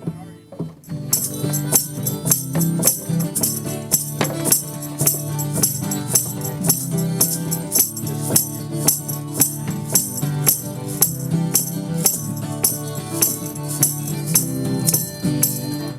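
Lively Irish jig played on harmonica, with a jingling percussion beat of about two strikes a second. The tune drops out briefly just after the start, then picks up again.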